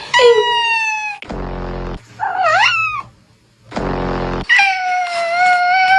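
A cat meowing several times in drawn-out calls: a falling meow at the start, a rising-then-falling yowl a little past two seconds in, and a long, steady meow near the end. Two short, low buzzy sounds come between the calls.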